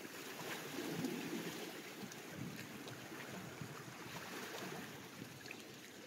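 Small waves washing and lapping against shoreline rocks, swelling about a second in and slowly ebbing, with small splashes.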